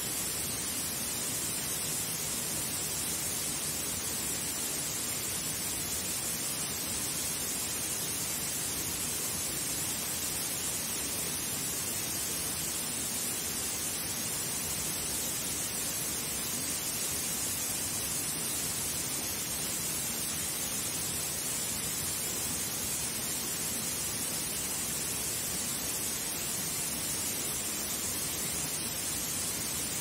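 Small waterfall splashing steadily into a pool: a constant rushing hiss, strongest in the high register, with no change in level.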